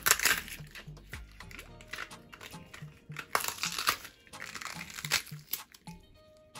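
Green bell pepper being torn and snapped apart by hand, crisp crunching and crackling in bursts, loudest at the start and again about three and a half and five seconds in. Soft background music runs underneath.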